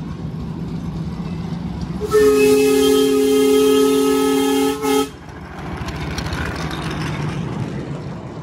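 Miniature-railway steam locomotive blowing its whistle, a loud chord of several steady tones held for about three seconds with a brief break just before it stops. The train then rumbles past on the narrow-gauge track with its carriages.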